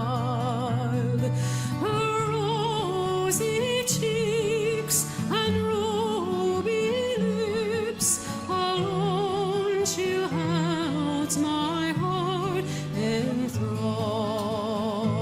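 Background music: a singer holding long notes with wide vibrato over a steady low accompaniment.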